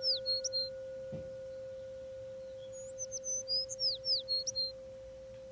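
A singing bowl's steady ringing tone, its higher overtone fading out after a couple of seconds, under a songbird's phrase of quick, falling chirps. The phrase ends just after the start and comes again unchanged about three seconds in.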